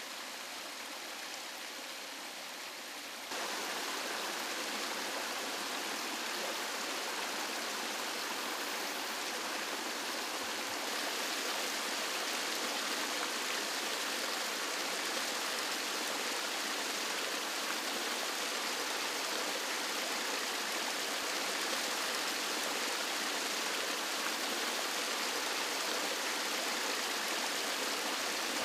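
Small rainforest stream with water spilling over rock ledges and splashing into a shallow pool: a steady rush of running water. It gets louder about three seconds in.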